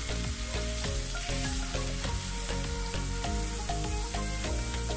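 Thin raw potato slices deep-frying in hot oil, sizzling and bubbling steadily, with light ticks as a spatula stirs them. The strong bubbling means the slices still hold moisture; they are fried until it dies down and they turn crisp. Background music plays along.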